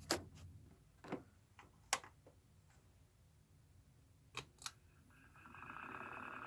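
A few sharp clicks, then about five seconds in a 1980s Dancing Wind Raleigh Jr. ceiling fan's motor starts up and builds to a steady hum with a high, even whine. The owner thinks the bearings could use oil.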